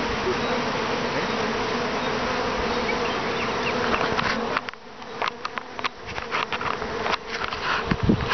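Many honeybees buzzing around the entrance of a long hive: a dense, steady hum. About halfway through the hum drops away, leaving short intermittent buzzes.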